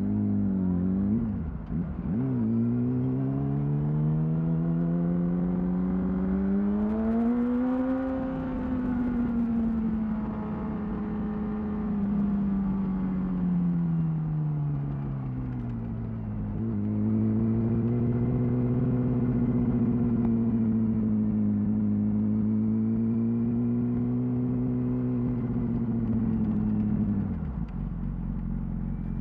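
2008 Yamaha R6 inline-four running through a Termignoni exhaust: a couple of quick throttle blips at the start, then a smooth pull that rises in pitch for about six seconds before easing off slowly. About halfway through the pitch drops sharply and the engine settles into a steady cruise, falling back to a low idle near the end.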